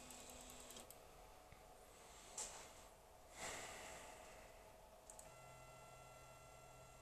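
Near silence: faint clicks and handling rustles, then a faint steady electrical hum with a thin high whine from about five seconds in.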